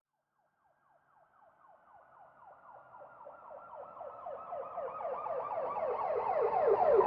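Police siren cycling in quick falling sweeps, about five a second, fading in from silence about a second in and growing steadily louder.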